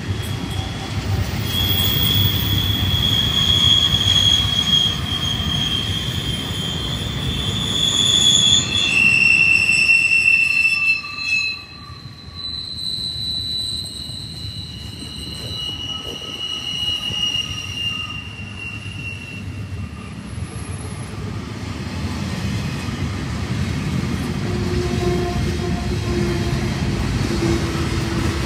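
Double-stack container train rolling by on a curve: a steady rumble of wheels on rail with high-pitched wheel squeal, several held tones that change pitch as the cars pass. The squeal is loudest in the first ten seconds and grows fainter after about twelve seconds.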